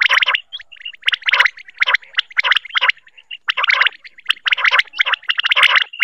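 Common quail calling over and over: quick clusters of sharp, high-pitched notes, a group about every second with short gaps between.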